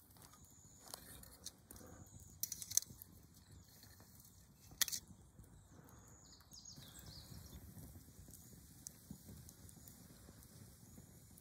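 A few sharp clicks and knocks of a wire grill rack and wooden blocks being handled, a cluster about two and a half seconds in and one louder knock near five seconds, over quiet outdoor ambience.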